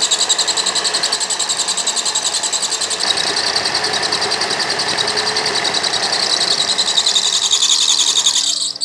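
Small electric motor driving a belt-driven spindle that spins a bamboo fishing rod in its tapered chuck: a steady whirring with a fast, even flutter, cutting off just before the end.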